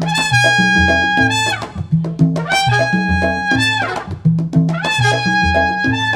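A jazz quartet playing: a horn holds long high notes, each ending in a falling smear, three times over a bass line.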